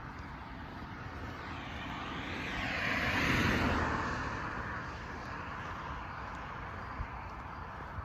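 A car passing on the road, its tyre and engine noise swelling to a peak about three seconds in, then fading away.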